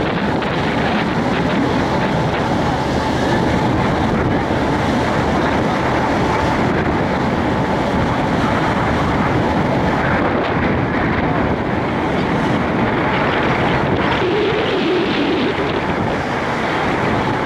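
Steady wind rushing over the microphone on the deck of a moving ship, mixed with the wash of the sea.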